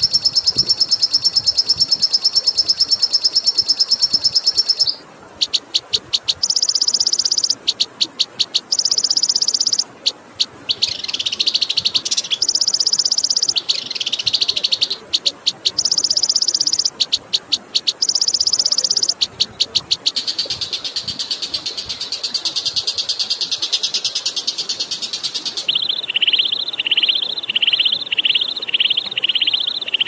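Recorded songbird 'masteran' song: long, very fast, high-pitched trills and rattles broken by short gaps, then near the end a run of about seven quick downward-sliding chirps.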